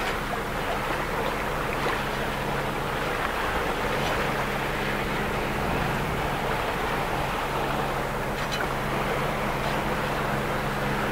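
Wind and sea water rushing steadily around a boat under way, over a low, steady engine hum that drops out briefly in the middle.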